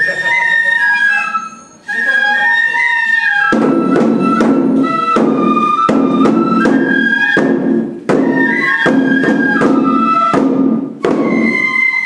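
Japanese bamboo flute (fue) playing a lilting festival melody for a shishimai lion dance. From about three and a half seconds in, the dancers' waist-worn drums join with loud, repeated drum strokes under the flute.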